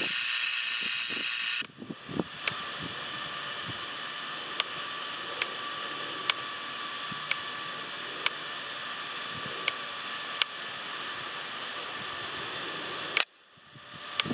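Spark gap Tesla coil powered by microwave oven transformers, firing: a loud buzzing crackle from the spark gap for about the first second and a half. It then falls to a quieter steady hiss-buzz with sharp snaps about once a second. A last loud snap comes near the end and the sound cuts off. The coil runs strongly only right at switch-on, which the builder puts down to voltage or quenching trouble at the spark gap.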